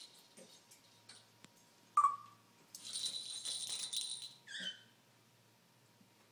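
African grey parrot making odd short sounds: a sharp chirp about two seconds in and a short falling call a little after halfway, with a jingling rattle, like a small bell being shaken, between them.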